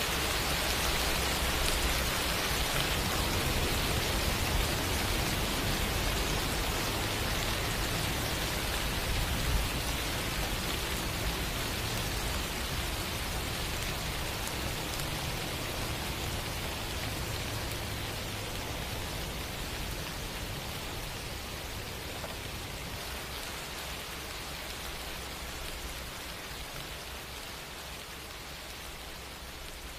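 Steady rain falling, a dense even hiss of drops that grows gradually quieter, with a low rumble underneath that dies away about halfway through.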